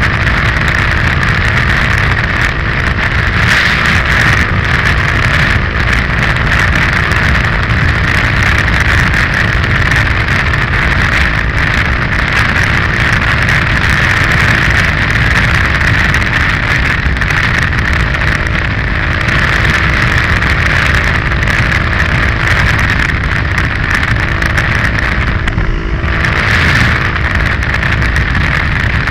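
KTM 530 EXC-R single-cylinder four-stroke motorcycle engine running steadily at cruising speed, heard from the rider's position, with wind rushing over the microphone.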